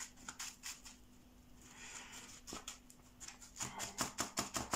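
Fingers pressing and working gritty bonsai soil in a small pot: soft crunching and rustling, with a quick run of crackles near the end.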